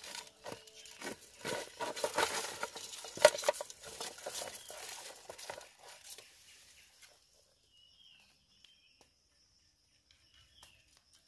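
Freshwater mussel shells clicking and clattering against each other and a metal pot as they are handled by hand: irregular small knocks that stop after about six seconds.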